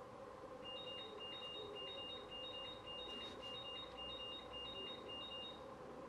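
Electronic beeping: two steady high-pitched tones sounding in short, even beeps about twice a second. It starts just under a second in and stops shortly before the end, over a faint steady background hum.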